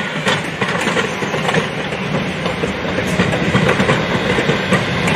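Vintage Southern Pacific passenger coaches rolling past, their wheels clicking steadily over the rail joints.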